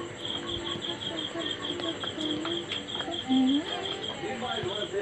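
Slate pencil being bitten and crunched, sharp crisp clicks, over a cricket chirping steadily in rapid even pulses. A short, louder low tone sounds about three seconds in.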